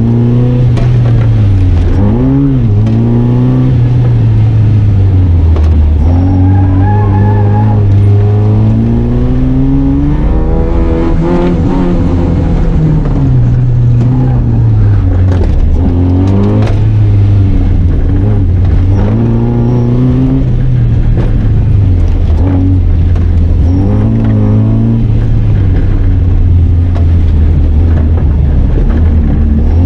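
Car engine driven hard through an autoslalom course, revving up and dropping back again and again, its pitch climbing and falling every couple of seconds.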